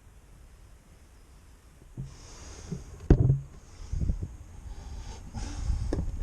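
Gusty wind noise on a helmet-mounted GoPro's microphone, starting about two seconds in, with a sharp knock about a second later.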